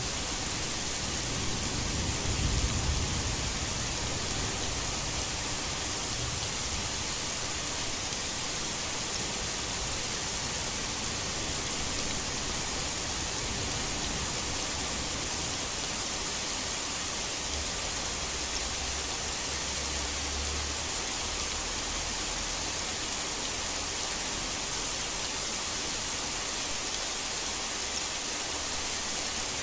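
Heavy rain falling as a steady hiss, blended with white noise, with low rumbles of distant thunder about two seconds in and again about two-thirds of the way through.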